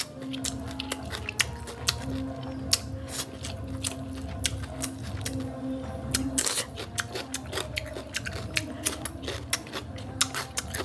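A person chewing food close to the microphone: quick, crisp crunches and wet mouth clicks coming irregularly, several a second, over a steady low hum.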